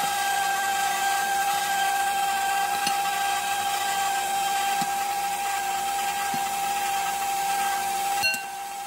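KitchenAid stand mixer running with its wire whisk beating cake batter: a steady, high motor whine of constant pitch. About eight seconds in there is a click and the sound drops in level.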